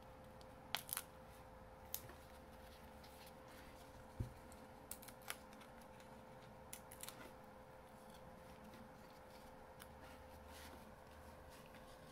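Faint, scattered clicks and ticks of fingers handling card and a sheet of foam adhesive dimensionals, picking them off and pressing them onto a small paper piece, mostly in the first seven seconds or so. A faint steady hum runs underneath.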